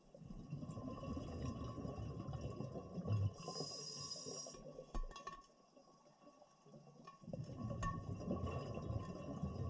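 Scuba diver breathing through a regulator, heard underwater: a long low gurgling rumble of exhaled bubbles, a short hiss of inhalation about three seconds in, and after a lull of about two seconds another rumble of bubbles from about seven seconds in.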